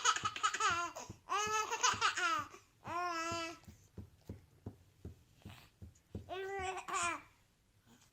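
A baby laughing and babbling in several high-pitched bursts, with short gasping catches between them near the middle.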